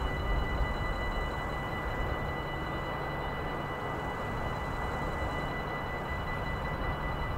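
Railway level crossing warning bell ringing continuously with a steady high chime, warning that a train is approaching, over a low background rumble.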